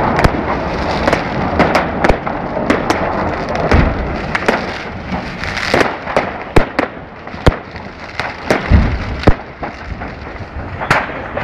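Fireworks going off unplanned: an irregular string of sharp bangs and pops, several a second at times, over a continuous hissing crackle.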